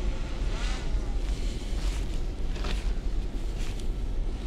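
Wind buffeting the microphone in a steady low rumble, with a few brief higher sounds, one about a second in that slides in pitch.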